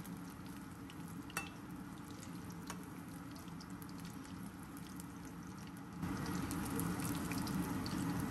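Paneer pakoras deep-frying in hot oil: a steady sizzle with scattered small pops and crackles. It grows louder about six seconds in.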